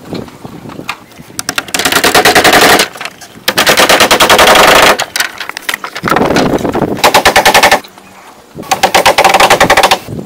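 Four bursts of very rapid rattling clicks, each about a second or so long with short pauses between, from hand work on a wooden pole platform.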